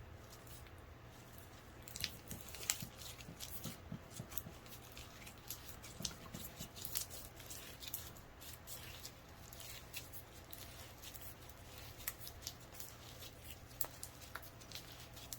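Clear slime being worked by hand, giving off a quick, irregular stream of small sticky clicks and pops that starts about two seconds in.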